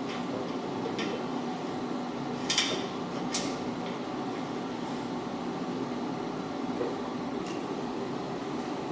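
A few sharp clinks and knocks of steel rack parts or tools being handled during assembly, the loudest two about two and a half and three and a half seconds in, over a steady fan-like hum.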